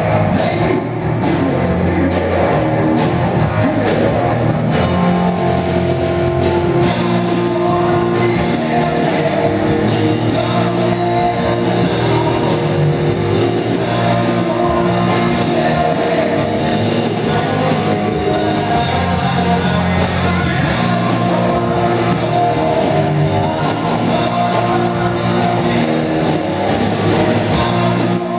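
Live rock band playing at a steady loud level: distorted electric guitar, bass guitar and a drum kit.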